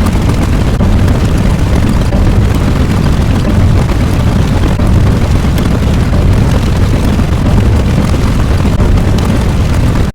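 A loud, steady rumbling noise, heaviest in the low end, with no clear pitch.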